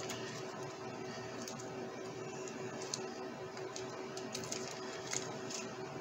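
Soft crinkling and handling of plastic packaging, with a few faint clicks, over a steady low hum.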